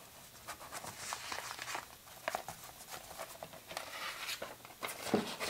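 Handling noise of a vinyl LP and its sleeve: rustling and light scraping with scattered small clicks and knocks as the record is moved about.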